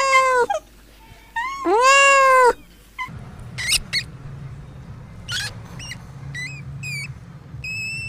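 Kittens meowing: two long, loud meows, each rising and then falling in pitch, the second about a second and a half in. From about three seconds in, short, high-pitched squeaks come several times over a low hum, from a nest of newborn hamster pups.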